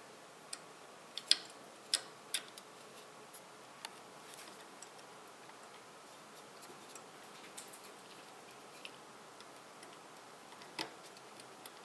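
Scattered small sharp clicks and taps of CPU cooler hardware being handled and fitted over the processor. A quick cluster comes about a second or two in, then lighter ticks, then one more distinct click near the end.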